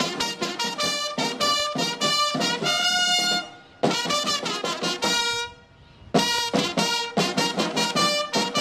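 Military brass band playing, with trumpets, trombones and a bass drum keeping a steady beat; it breaks off twice for a moment near the middle.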